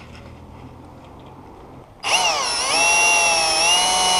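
AEG cordless drill driving a tack screw into the plywood: after a quieter first half, the motor starts about halfway through and whines loudly, its pitch dipping and recovering as it runs under load.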